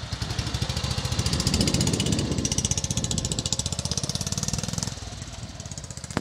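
1944 BSA WM20's 500 cc side-valve single-cylinder engine pulling away and riding off, a rapid even exhaust beat through a new Armours silencer built to the original British Army baffle pattern, giving a muted, muffled note. It is loudest as the bike accelerates away about two seconds in and drops off about five seconds in as it moves away.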